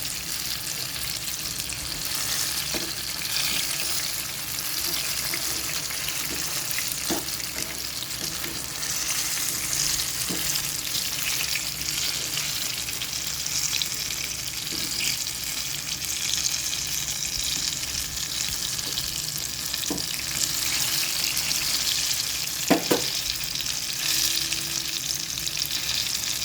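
Tape goreng (battered fermented-cassava fritters) frying in hot oil, a steady sizzle, with a few light knocks of a utensil against the pan; the loudest is a double knock near the end.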